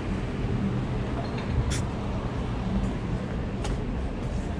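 Downtown street ambience: a steady low rumble of traffic with a vehicle engine hum, and a couple of short sharp clicks.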